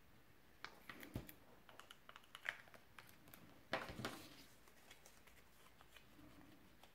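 Faint handling of cardstock and paper: a scatter of small clicks, taps and light rustles, with a louder rustle of card about four seconds in.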